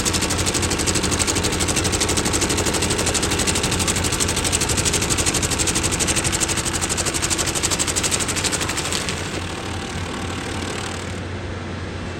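Skid-steer-mounted Eterra Vortex stump grinder cutting into a small apple stump: a fast, steady chatter of the cutter teeth over the skid steer's engine. About nine seconds in the chatter eases, and a little later it stops, leaving the lower engine sound.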